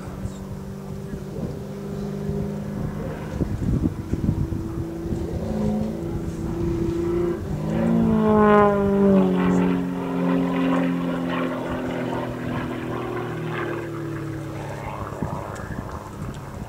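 Single-engine aerobatic plane's piston engine and propeller droning as it flies its manoeuvres, the pitch shifting as it turns. About halfway through it gets loudest, with a whine that falls steeply in pitch.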